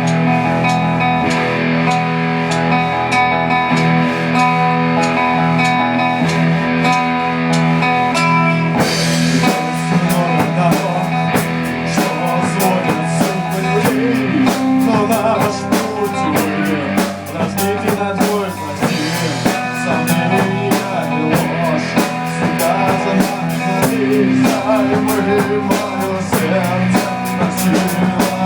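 Rock music with guitar and a drum kit; the drums and a busier arrangement come in about nine seconds in.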